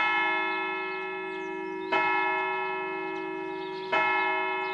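A church bell tolling, struck three times about two seconds apart, each stroke ringing on and fading before the next.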